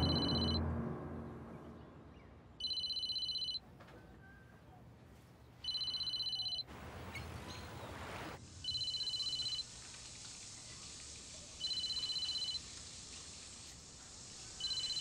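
A basic mobile phone ringing: a two-tone electronic ringtone beeping for about a second, repeating every three seconds.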